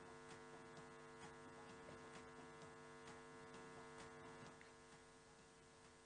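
Near silence with a steady electrical hum.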